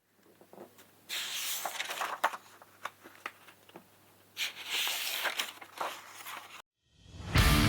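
Light handling noises: scattered clicks and short rustles in two stretches, over a faint low hum.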